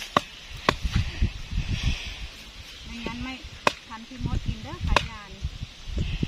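A length of wood being struck down onto a sprinkler's stake to drive it into the ground: a few sharp, irregularly spaced knocks.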